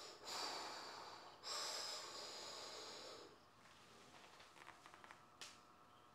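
A man breathing hard and forcefully, two long breaths in the first half, bracing for a heavy set of weighted pistol squats. A few faint clicks follow, with a small tick about five seconds in.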